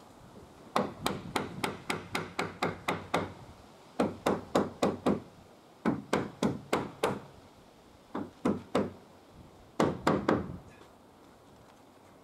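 Hammer driving nails into timber boards, in five runs of quick blows, several a second, with short pauses between runs.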